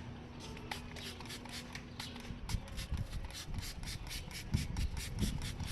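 Scrubbing degreaser into caked-on grime on motorcycle parts with a brush, in quick, even rasping strokes, about five a second.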